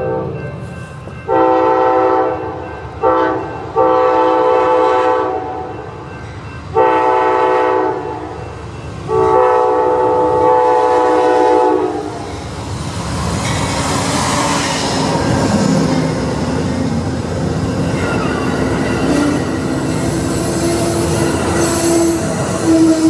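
Amtrak GE Genesis diesel locomotive sounding its horn in a series of blasts for a grade crossing, the last held for about three seconds. The train of double-deck Superliner passenger cars then passes close by with a loud rumble and wheel noise, and a steady wheel squeal sets in near the end.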